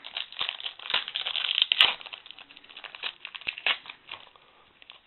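Crinkling and rustling of trading-card packaging as sports cards are handled, densest in the first two seconds with one sharp click, then thinning to scattered crackles.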